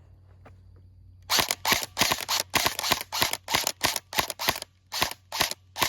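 Airsoft gun firing a fast string of shots, about four a second, starting about a second and a half in, with the pace slowing slightly toward the end.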